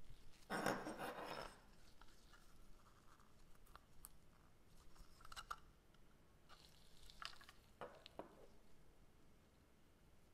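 Faint handling noises of small parts being worked on: a scratchy scrape lasting about a second, starting about half a second in, then scattered light clicks and a couple of short scrapes further on.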